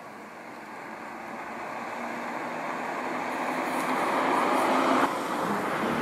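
A car approaching on the road, its tyre and road noise growing steadily louder, then cutting off suddenly about five seconds in.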